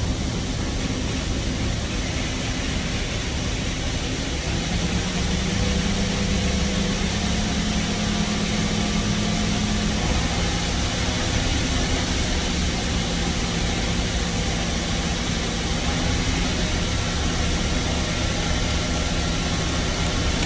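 Farm tractor engine running steadily, heard from inside the cab over a constant hum; its note drops about four seconds in and again about ten seconds in.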